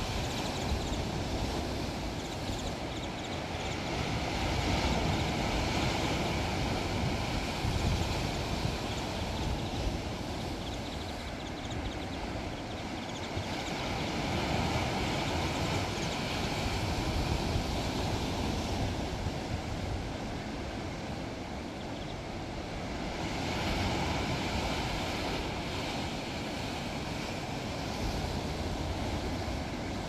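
Strong wind buffeting the microphone with a low rumble over the rush of waves breaking on rocks, swelling and easing in gusts.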